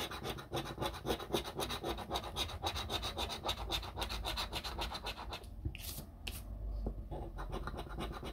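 A coin scratching the coating off a scratch-off lottery ticket in quick back-and-forth strokes, several a second. The strokes thin out about five and a half seconds in.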